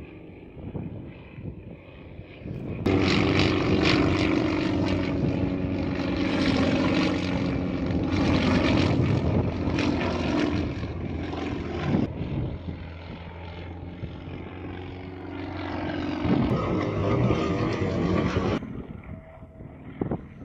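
Sukhoi Su-26 aerobatic plane's nine-cylinder radial engine and propeller running in flight. It is faint at first, turns suddenly loud about three seconds in, its pitch shifting with the manoeuvres, and drops back sharply near the end.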